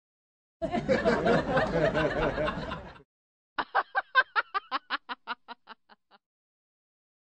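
People laughing: a stretch of mixed laughing voices, then a single laugh in a quick run of short 'ha' pulses, about five a second, that grow fainter until they die away.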